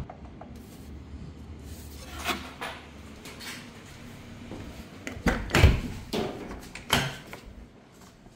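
A low hum fades out about a second and a half in. Then comes a run of sharp knocks and clunks at the car's door, the loudest about five and a half seconds in.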